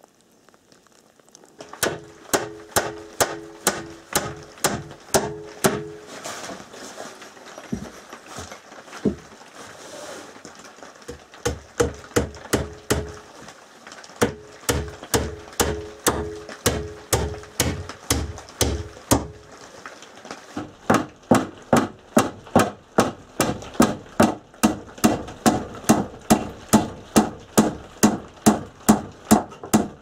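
Hammer driving nails into wooden boards: runs of steady blows at about two a second, some ringing, with brief pauses between runs.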